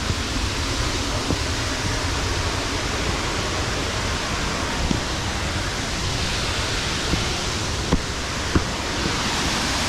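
Waterfall rushing in a steady roar of water, with a few light taps over it.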